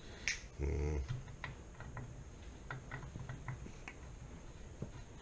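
Light irregular metal clicks and taps, a few a second, as a bicycle pedal is worked into the left crank arm's threads, which keep binding partway in. A short, louder low sound comes about half a second in.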